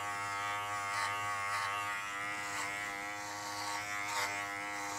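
Kenchii Flash 5 cordless adjustable-blade dog clipper running with a steady, even-pitched buzz while skimming a Goldendoodle's thick coat.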